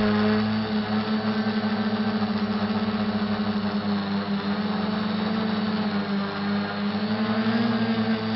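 SK450 dead-cat quadcopter's motors and propellers running in flight, a steady buzzing hum with a fast pulsing beat, heard close from the camera on its frame. Its pitch rises briefly near the end as the throttle changes.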